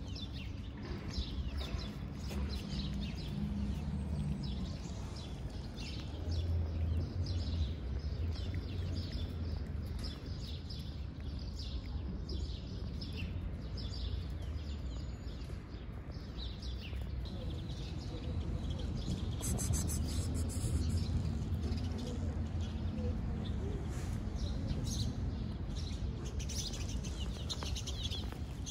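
Small birds chirping in quick, repeated calls over a low steady rumble of background noise.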